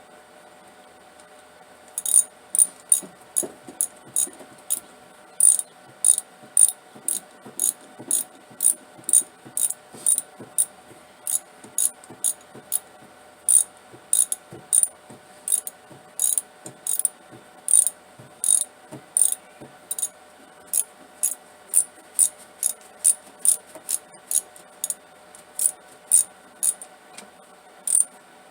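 Ratchet wrench clicking in a steady run of strokes, about two clicks a second, while working a spark plug on a Plymouth slant-six engine. The clicking starts about two seconds in and stops near the end.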